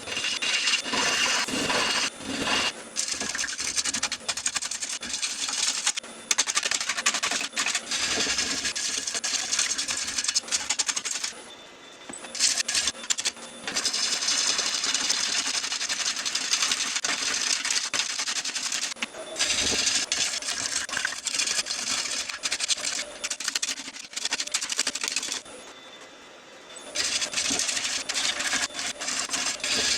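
A tool cutting a spinning yew blank on a wood lathe: a steady, rough, hissing scrape broken by a few knocks. It breaks off three times when the tool comes off the wood, once only briefly.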